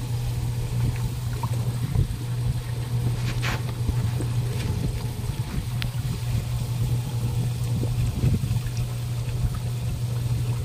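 Water trickling and splashing in an aquaponics system, over a steady low hum.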